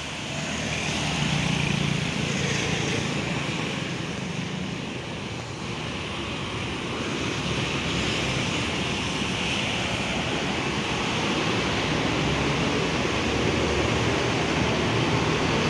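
Bus engine running steadily, a low hum under a wash of wind noise on the microphone.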